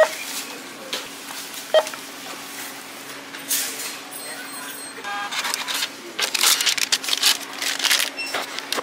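Self-checkout kiosk at work: a short beep about two seconds in and another brief tone near the middle, then a run of clattering and rustling as items are handled, over a steady hum.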